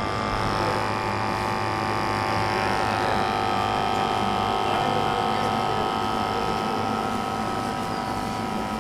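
A steady machine hum made of several held tones over a low drone, with no strokes or rhythm, and indistinct voices faintly beneath it.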